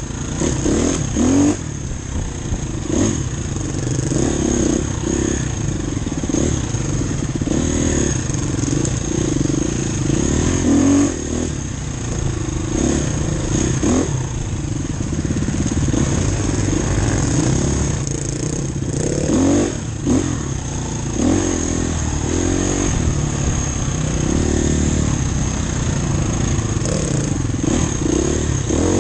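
Off-road enduro motorcycle engine under hard riding, the revs rising and falling every second or two as the throttle is opened and closed.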